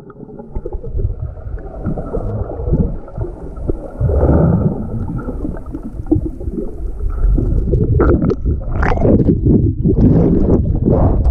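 Underwater sound through an action camera's microphone: a muffled low rumbling and gurgling of churned water and bubbles as swimmers dive around it. Sharper splashy bursts come in the last few seconds.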